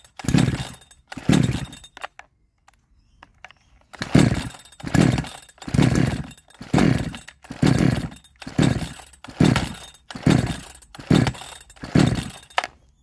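Recoil starter of a 62cc Chinese two-stroke chainsaw being pulled over and over, the engine cranking without catching: two pulls, a pause of about two seconds, then about ten quick pulls, roughly one a second. The owner suspects a weak spark from the ignition coil is keeping it from starting.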